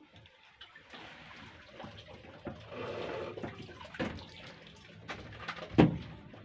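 Water sloshing and splashing, with a few sharp knocks; the loudest knock comes near the end.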